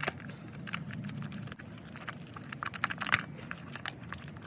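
Quick irregular clicks and taps of hand tools on the engine, bunched around three seconds in: a ratchet wrench working the 10 mm ignition-coil bolts loose, over a steady low hum.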